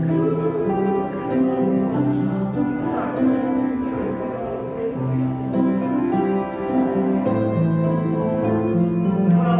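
Instrumental music: held notes with chords changing every half second or so, at a steady level.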